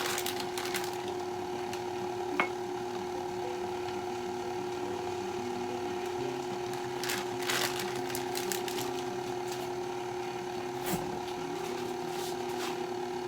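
Electric kitchen mixer motor running with a steady hum, broken by a few light clicks and knocks of handling.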